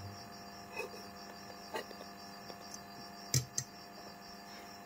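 Faint steady electrical mains hum with a few light clicks and taps at the workbench, the loudest a quick pair about three and a half seconds in.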